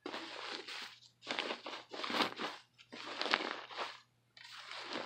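Hands squeezing and kneading fluffy slime, in about five separate noisy squishes with short pauses between them.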